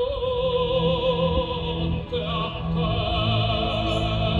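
Operatic music: a voice holding long notes with a wide vibrato over a sustained orchestral accompaniment.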